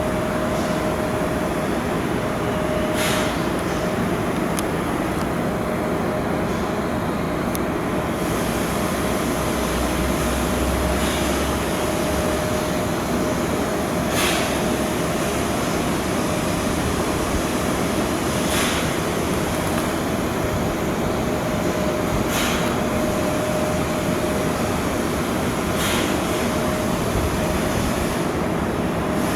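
Steady shipyard work noise with a constant machine hum and a sharp click or knock every few seconds.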